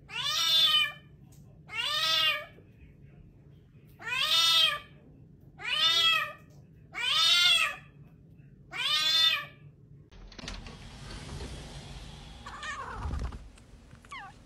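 A cat meowing loudly six times, about one call every one and a half seconds, each meow rising and then falling in pitch. After that comes a softer stretch of background noise with a faint short meow near the end.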